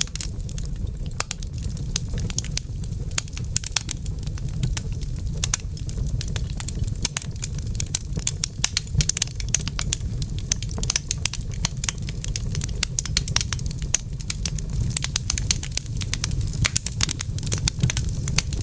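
Fire burning in a fireplace, crackling with frequent, irregular sharp pops over a steady low rumble.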